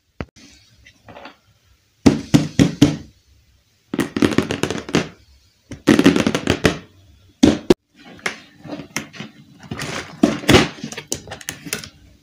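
Hands handling a cardboard toy box: irregular knocks, taps and rustling in several loud bursts as the box is patted and opened.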